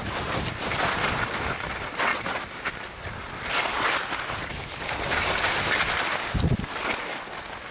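Touring skis hissing and scraping over snow through a run of turns down a steep slope, the rush swelling with each turn, with wind noise on the microphone. A short low thump about six and a half seconds in.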